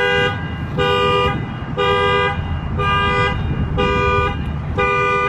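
A car horn honking in short, evenly spaced blasts about once a second, the repeating pattern of a car alarm going off. Each honk is a two-note horn sound about half a second long.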